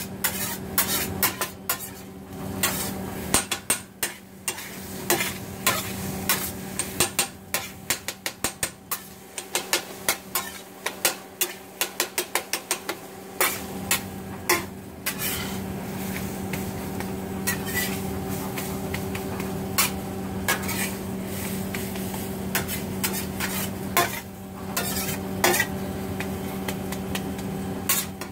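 Steel spatula chopping and scraping scrambled eggs and bacon on a flat-top griddle: sharp metal-on-metal taps, in quick regular runs during the first half and sparser afterwards. Underneath, the eggs sizzle on the griddle over a steady hum.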